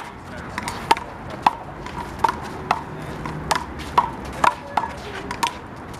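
A big blue rubber handball being struck by hands and rebounding off the wall and pavement in a rally. There are about nine sharp smacks, each with a short hollow ring, half a second to a second apart.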